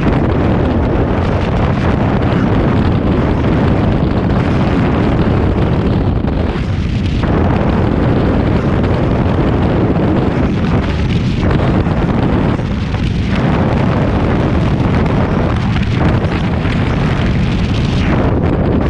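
Freefall wind rushing over a camera's microphone during a skydive: a loud, steady rumble of air.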